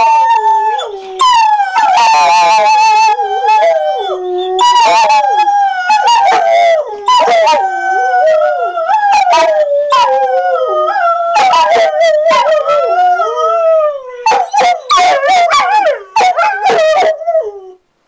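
Greyhound howling: long, wavering howls that glide up and down in pitch, one after another with short breaks between.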